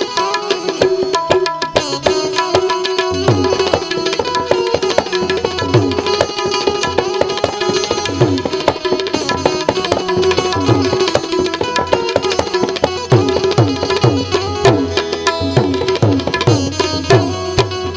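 Indian devotional instrumental music: tabla playing a steady rhythm over a sustained melodic instrument. About three seconds in, the bass drum strokes come in, gliding in pitch.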